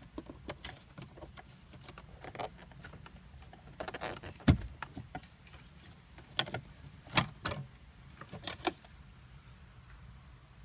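Nissan GT-R center console trim pieces being slid out and handled: a scatter of light clicks, knocks and rattles, with two sharper knocks about four and a half and seven seconds in.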